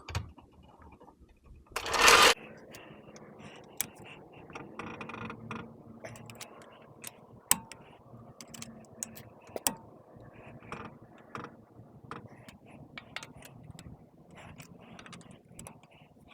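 Lug nuts being run onto a car wheel's studs and tightened with a hand ratchet: scattered metallic clicks and rattles. A loud half-second burst of noise comes about two seconds in.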